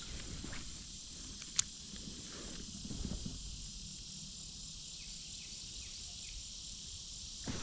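Steady high-pitched chorus of insects, with low rumbling handling noise and a single sharp click about one and a half seconds in.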